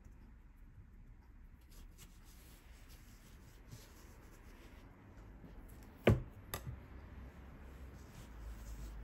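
Quiet hand sounds of pressing and shaping soft bread dough on a silicone mat, with two sharp knocks about six seconds in, half a second apart.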